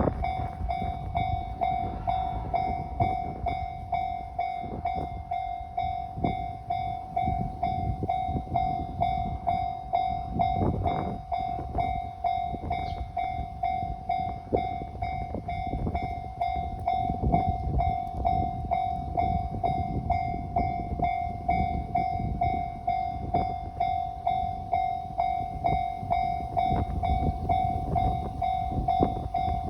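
Japanese level-crossing warning bell clanging in a steady rapid rhythm, while a JR Kyushu 815 series electric train rumbles and clatters over the crossing underneath it.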